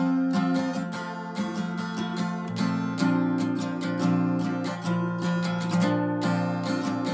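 Acoustic guitar strummed in a steady rhythm, the chord changing a few times.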